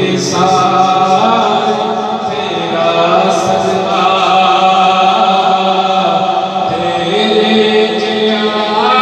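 A man chanting an Islamic devotional poem (kalam) into a microphone, without instruments, in long held notes.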